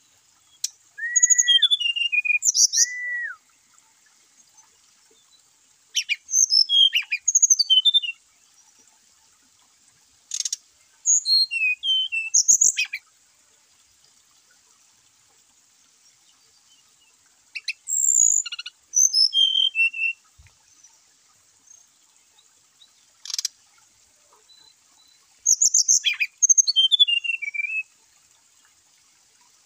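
Brown-chested jungle flycatcher singing: five short phrases of clear whistled notes, mostly falling in pitch, with pauses of a few seconds between them. Two sharp clicks fall between phrases, the louder one past the middle.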